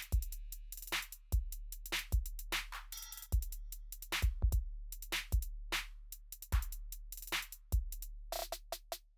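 Background electronic music with a drum-machine beat: deep kick drum hits with snare and hi-hat strokes.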